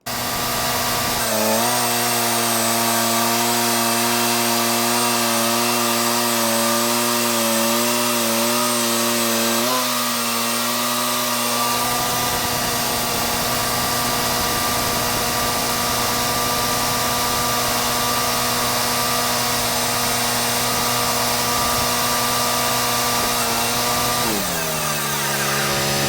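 Wood-Mizer portable band sawmill running and cutting white oak, its engine note dipping and wavering under load for the first ten seconds or so, then holding steady. About 24 seconds in, the engine pitch falls and settles lower.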